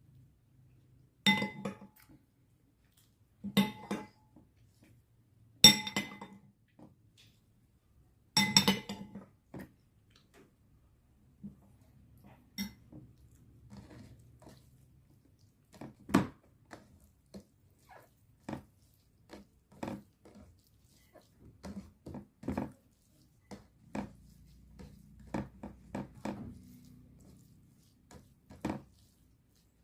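Dishes clinking: a utensil strikes a dish four times in the first nine seconds with a ringing clink, then lighter clicks and taps follow at irregular intervals.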